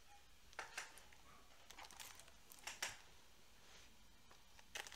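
Near silence with four or five faint, short crinkling rustles spread through it.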